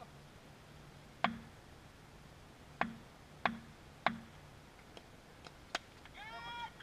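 Cricket bat tapped on a hard court surface four times as the batsman takes his stance: sharp knocks, each with a dull thud, followed by a few faint clicks. Near the end comes a short high-pitched call.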